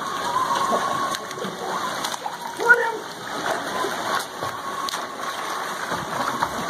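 Pool water splashing from a swimmer doing front crawl, with a brief louder pitched call about two and a half seconds in.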